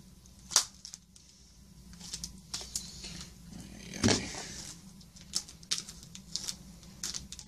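Packing tape and cardboard being pulled and torn apart by hand: an irregular run of sharp clicks, crackles and scrapes, with a louder click about half a second in and a louder, fuller tearing sound about four seconds in.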